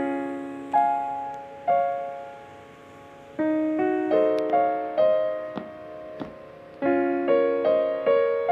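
Background piano music: gentle single notes and chords, each struck and left to ring and fade before the next.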